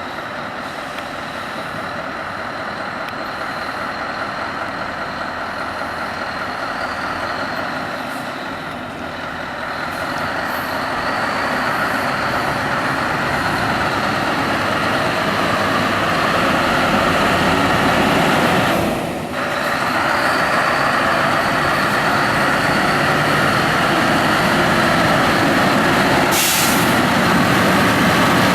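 Scania R620 truck's V8 diesel engine running, growing steadily louder, with brief drops in level twice. A short hiss comes near the end.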